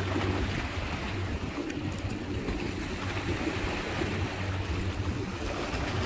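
Strong wind buffeting the microphone, a steady rumbling noise, over choppy seawater washing at the shore.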